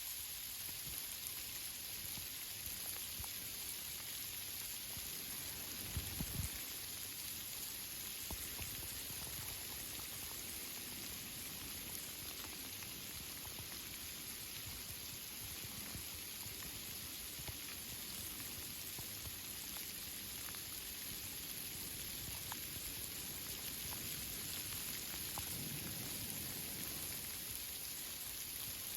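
Steady rain falling on tree leaves: an even hiss with scattered faint drip ticks. A brief low thump about six seconds in.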